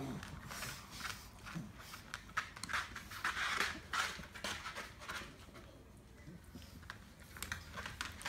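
A pug in a dog wheelchair moving about on a wooden floor while a hand pets her: short scratchy rubs and clicks, with a few bursts of breathy noise, the strongest about three seconds in.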